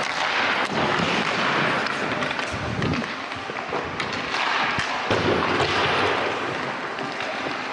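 Ice skates scraping and hissing on the ice during hockey warmup, heard close up from a goalie's mask camera, with scattered sharp knocks of pucks and sticks.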